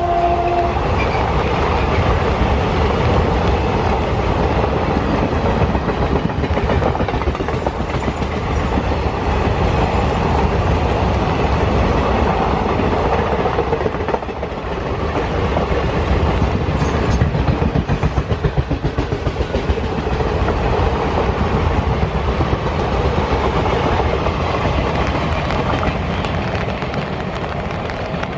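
Two ALCo WDG-3A diesel locomotives, each with a 16-cylinder turbocharged ALCo 251 engine, chugging past under load, over the rumble and clatter of train wheels on the rails. The tail of a horn blast cuts off under a second in.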